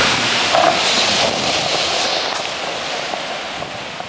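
Skateboard wheels rolling over stone paving with wind rushing on the microphone: a steady hiss that slowly fades away.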